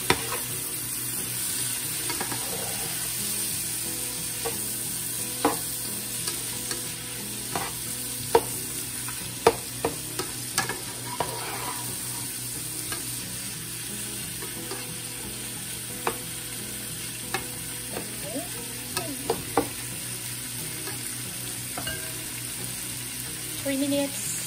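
Thinly sliced ribeye steak with onions and mushrooms sizzling steadily in a large black pan while a black spatula stirs it. Many short, sharp knocks and scrapes of the spatula against the pan come through the sizzle.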